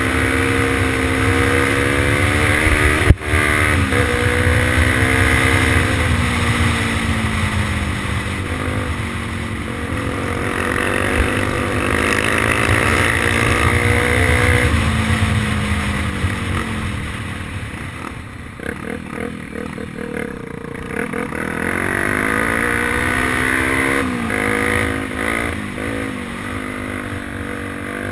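Honda XR 250 Tornado's single-cylinder four-stroke engine ridden hard, its revs climbing and dropping again and again as it pulls through the gears. About two-thirds of the way in it eases off, then climbs again, under a low wind rumble on the microphone. A sharp knock sounds about three seconds in.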